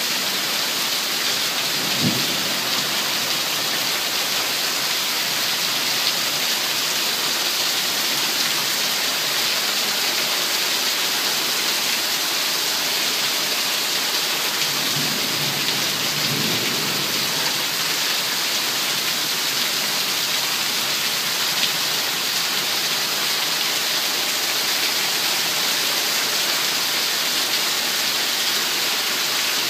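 Heavy rain pouring steadily in a thunderstorm, a dense even hiss. There is a sharp knock about two seconds in and a low rumble of thunder around the middle.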